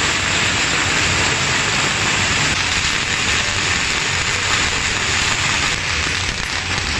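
Several long strings of red firecrackers going off at once, making a loud, dense, unbroken crackle.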